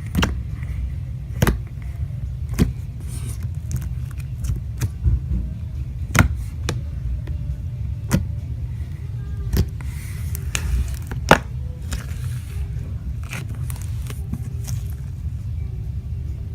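Foam slime being squished and stretched by hand, giving irregular sharp pops and crackles over a steady low rumble.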